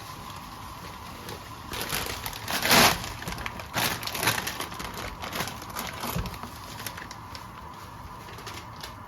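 Kitchen handling noises during food preparation: a run of irregular crinkling, rustling sounds, loudest a little under three seconds in and dying down after about seven seconds.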